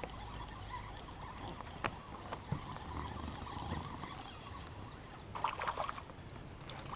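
Quiet water lapping around a boat hull with a few small knocks, then, about five and a half seconds in, a brief burst of splashing as a hooked striped bass thrashes at the surface.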